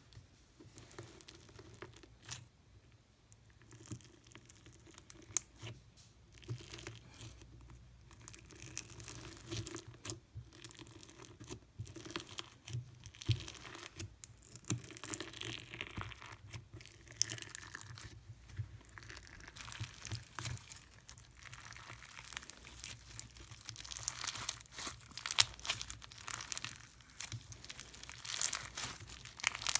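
Hands squishing, stretching and poking slime: sticky crackles and small pops, sparse at first and growing denser and louder in the second half.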